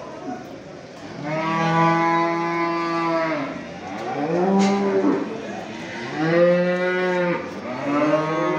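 Cattle mooing: four long, low calls one after another, the second one shorter.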